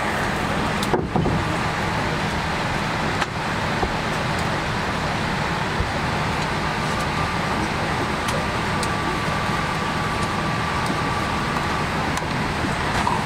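Steady cabin noise of a Boeing 787-8 airliner parked at the gate: an even rush of ventilation air over a low hum. A couple of sharp clicks come about one and three seconds in.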